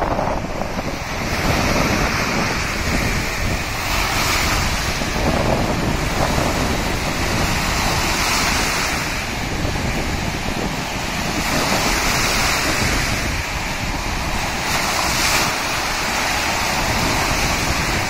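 Stormy, wind-driven waves breaking and washing onto a sandy shore, swelling in surges every few seconds. Strong wind buffets the microphone as a steady low rumble.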